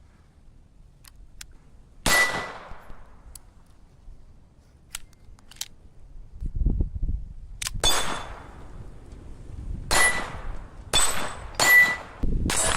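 A 7.65 mm pistol fired five times at irregular intervals: a single shot about two seconds in, then four more in quicker succession near the end. Each shot is a sharp crack followed by a fading tail.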